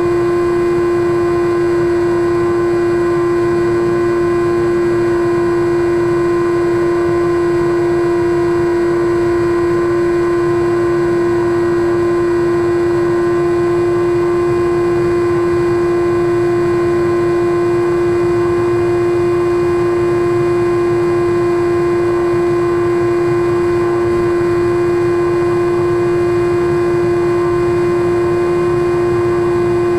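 Brushless electric motor (Turnigy Aerodrive SK3 35/36 1400kv) and three-blade 9x6 propeller of a SkyWalker model plane at steady cruise throttle, picked up by the camera on board: one constant droning hum with rushing air beneath it.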